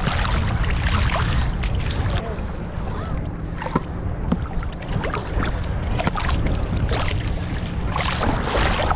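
Wind rumbling on the microphone over the wash of surf, with scattered clicks and knocks.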